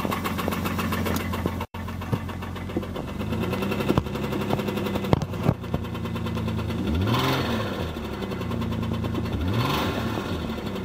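A 2001 Chrysler Sebring's DOHC V6 engine idles and is revved: its pitch climbs from about three seconds in, then it is blipped up and down twice near the end. It is knocking from a bad rod bearing.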